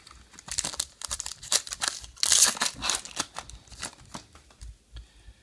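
Trading-card pack wrapper crinkling as it is pulled from the box and handled, then torn open with a loud tearing rip about two seconds in.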